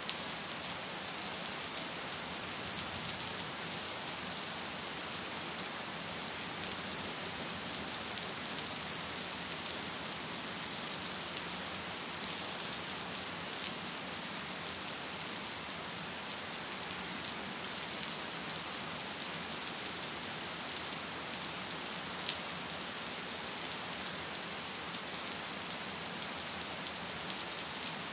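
Gentle rain falling steadily, an even hiss with the ticks of single drops here and there.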